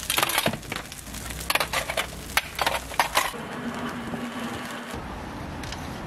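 Hotteok frying on an oiled griddle under steel dome lids: sharp crackling and popping in the first three seconds, then a steadier, duller sizzle.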